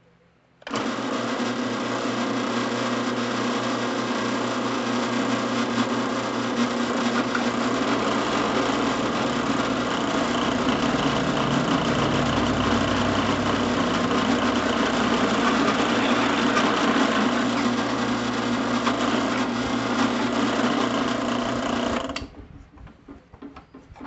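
Drill press running, its twist bit boring a hole through a metal hitch-receiver bar clamped in a vise, a steady motor-and-cutting sound. It starts about a second in and cuts off suddenly near the end, leaving a few light clicks.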